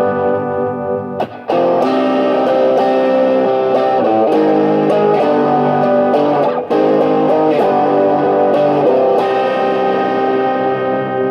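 Electric guitar playing held chords and notes through a Whirly Bird envelope-controlled phaser pedal in fade-in mode, so the phasing swells in as each chord sustains. The playing breaks off briefly twice, about a second and a half in and near seven seconds, and new chords are struck.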